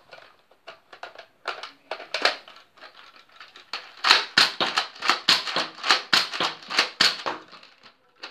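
Nerf Recon blaster being handled and fired: scattered plastic clicks of the magazine and mechanism, then from about halfway a quick run of sharp plastic clacks, about three a second, as the slide is pumped and the blaster fired over and over.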